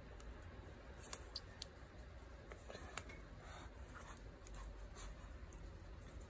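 Faint handling sounds of a soft tape measure in a baby's hands: a few light clicks and scrapes, the clearest about a second in and around three seconds, over a low room hum.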